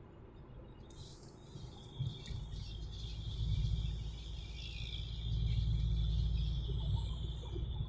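Low road and engine rumble inside a moving car's cabin, swelling about two seconds in, with a thin high-pitched whistling hiss over it.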